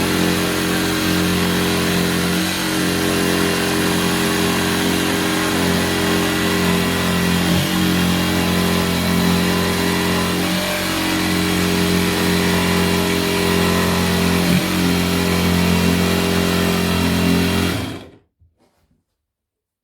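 Erbauer 18V cordless jigsaw cutting a sink hole through a 40 mm worktop. The motor runs at a steady pitch with a few brief dips, then stops suddenly near the end.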